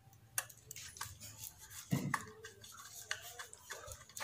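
Screwdriver working a terminal screw on the plastic-cased Selec CH403 thermostat's rear terminal block: a run of small clicks and scrapes, with a soft knock about two seconds in.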